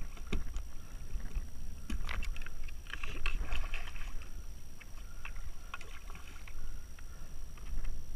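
Water splashing and sloshing against a plastic sit-on fishing kayak, with scattered knocks and clatters on the hull. Wind rumbles on the microphone throughout, and the splashing is loudest about three seconds in.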